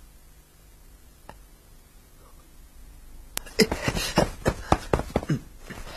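Quiet at first, then a sharp click about three and a half seconds in, followed by a quick run of loud knocks and taps: a man's footsteps and stamps on stone steps as he spins.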